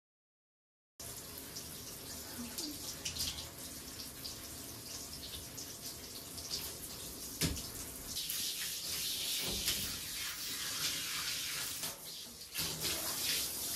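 Water splashing and dripping in a bathtub as a wet small dog is rubbed and washed by hand. From about eight seconds in, a handheld shower head sprays water over the dog with a steady hiss.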